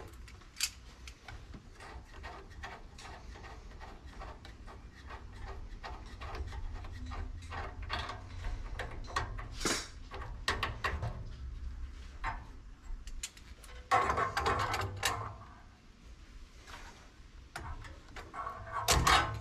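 Pliers and fingers working the fittings and wire connections under a gas water heater's control valve: scattered small metallic clicks and taps, with a louder stretch of rubbing and handling about two-thirds of the way through and again near the end.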